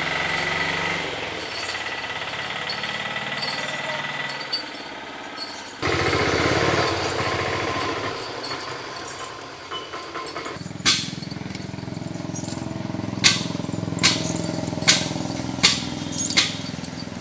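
Outdoor road noise with an engine running, then a captive elephant's iron chain clinking as it walks: sharp clinks about once a second, the loudest sounds here.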